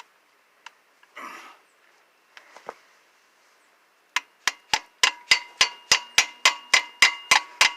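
Hammer blows on a 1-1/8 inch socket driving a new freeze plug into a Chevy 350 cast-iron engine block. There are about fourteen quick metallic strikes, about four a second, with a ringing tone, starting about four seconds in. A few faint handling clicks come before them as the socket is set in place.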